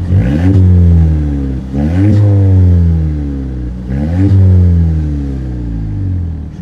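Mazda 3 Turbo's turbocharged four-cylinder heard at its Corksport cat-back exhaust, blipped three times from idle. Each rev rises quickly and falls back to idle over about a second and a half, about two seconds apart.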